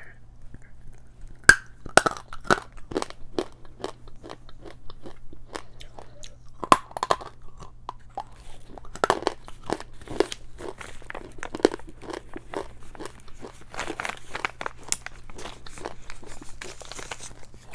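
A hard piece of edible clay being bitten and chewed. Sharp cracking bites come about a second and a half in and again about seven seconds in, with close, steady crunching between and after them.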